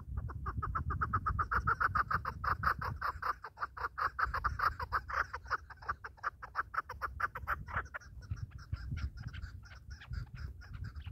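Chukar partridge calling: a long, rapid run of clucking notes, several a second, that grows fainter about eight seconds in.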